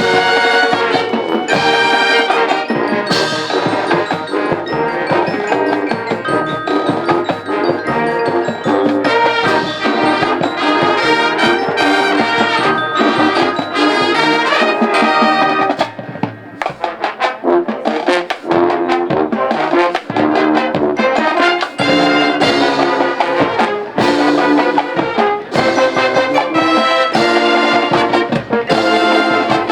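High school marching band playing: massed brass, trombones and trumpets to the fore, over percussion and mallet instruments. The music is loud and continuous, easing briefly about halfway through before the full band comes back in.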